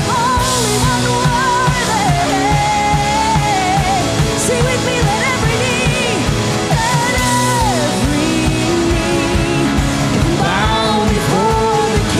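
A woman's voice singing a slow worship-song melody into a microphone over a live band: strummed acoustic guitar with a steady beat underneath.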